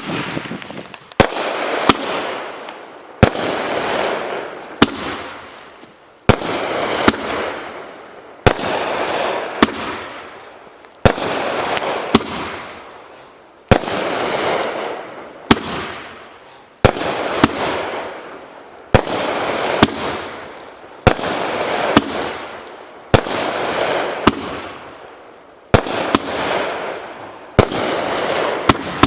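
500-gram consumer cake firework (DFC0309 Golden Throne, 36 shots) firing shot after shot: a sharp bang roughly every one to two seconds, sometimes two close together, each followed by a hissing tail that fades away over about two seconds.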